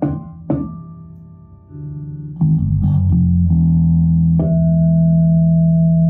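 Fodera Viceroy six-string electric bass played fingerstyle through a bass amp. Two short plucked notes die away in the first second, then longer notes and a chord are plucked and left to ring, sustaining steadily from about two-thirds of the way through.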